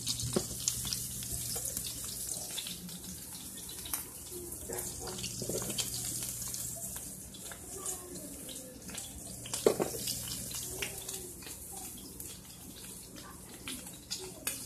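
Steady high hiss of food frying in pans on the stove, with scattered clicks of metal tongs and utensils as fried onions are lifted onto burgers. The sharpest click comes just under two-thirds of the way through.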